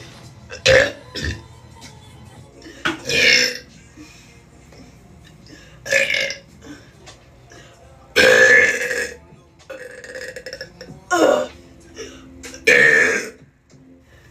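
A woman burping repeatedly: about seven loud burps, some short and some drawn out, the longest lasting about a second.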